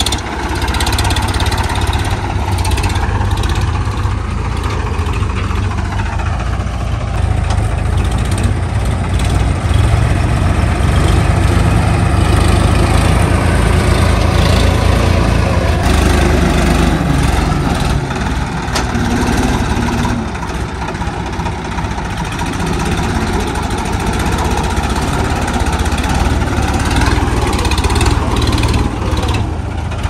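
Swaraj 963 FE tractor's three-cylinder diesel engine running steadily under load while its front loader digs and lifts soil, growing a little louder about ten seconds in and easing off about eight seconds later.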